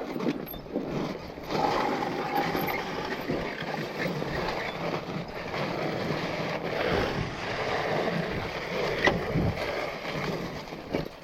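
Rolling noise of a mountain bike riding a rough, wet dirt trail: a continuous rough rush of tyres and rattling bike parts, mixed with wind on the microphone, with a few small knocks from the rough ground.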